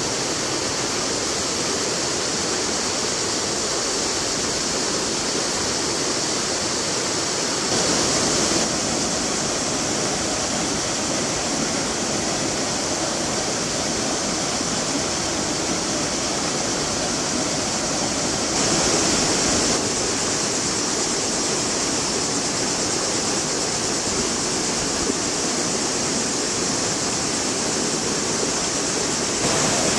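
Stream water running steadily through a canyon, a continuous rushing hiss that turns briefly louder and brighter about eight and nineteen seconds in.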